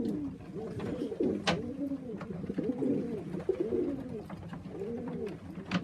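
Racing pigeons cooing in a loft, with several rising-and-falling coos overlapping one another, and a sharp click about a second and a half in.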